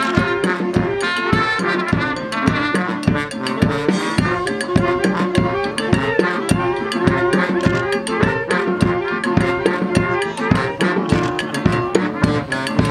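Brass band with drums playing a tune to a steady beat.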